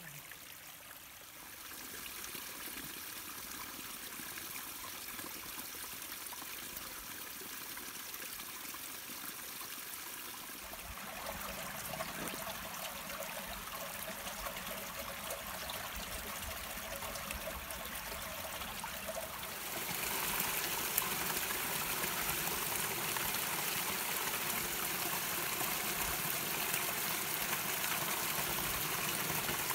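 Small woodland brooks trickling and splashing over stones and leaves, a steady rush of running water. It gets louder in steps and is loudest in the last third, where the water spills over a little cascade.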